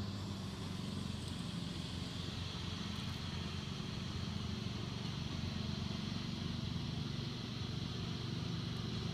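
Steady low mechanical hum, like a running engine or motor, holding even throughout.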